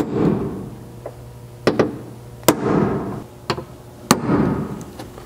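Ball-peen hammer striking a steel center punch held on a Toyota Land Cruiser's sheet-steel cargo floor pan, about five sharp metallic taps a second or so apart, the heavier ones ringing briefly. The punch is dimpling the marked mounting-hole spots to guide 1/8-inch pilot drilling.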